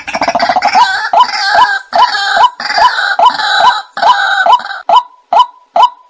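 White-breasted waterhen calls played as a lure recording. A sharp call note repeats about twice a second, with a harsh gurgling chorus over it until about five seconds in, then only the repeated notes.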